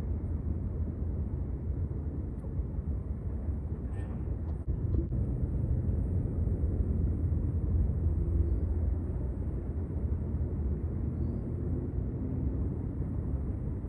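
Steady low outdoor rumble, heaviest in the bass, with a few faint clicks about four to five seconds in.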